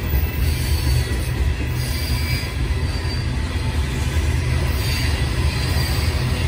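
Loaded coal hopper cars of a freight train rolling past with a steady low rumble, with faint high wheel squeal coming and going.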